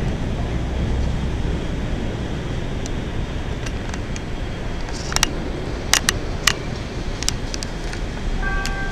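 CTA 5000-series rapid-transit train pulling slowly into an elevated station, a steady low rumble with a handful of sharp clacks about five to seven seconds in as the wheels cross the track. Near the end a few steady high tones join in.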